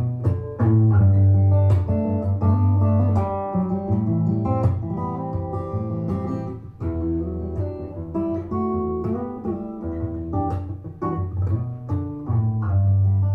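Guitar-led song with a strong bass line played from a phone over Bluetooth through an LG S80QY soundbar and its wireless subwoofer, heard as a demonstration of the system's sound.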